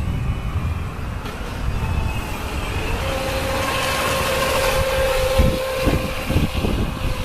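Electric motor of a WLtoys WL915 radio-controlled racing boat whining steadily at speed across the water, the whine growing louder about three seconds in, over a low rumble.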